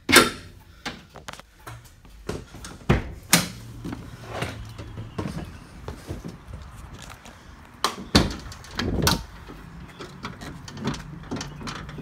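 Ford Transit cargo van's metal doors and door hardware banging and clunking: a loud bang right at the start, then a series of separate knocks and rattles, with heavier clunks about three seconds in and again about eight to nine seconds in.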